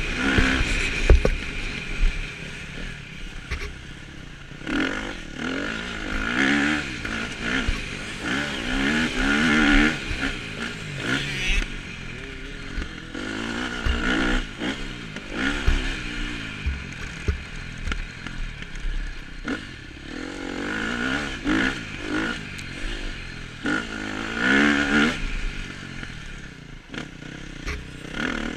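KTM motocross bike's engine being ridden hard on a dirt track, revving up and falling back again and again as the rider accelerates and shifts, with wind rushing over a helmet-mounted microphone and occasional knocks and clatter from the bike over bumps.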